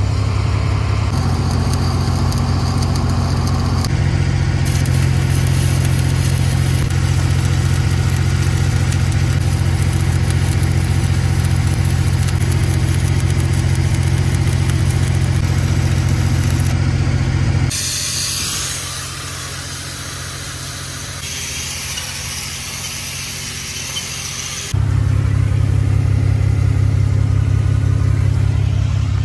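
Engine of a truck-mounted welding rig running steadily with a low hum, and a stick-welding arc hissing and crackling. For about seven seconds past the middle the engine is fainter and the arc's high hiss is the main sound.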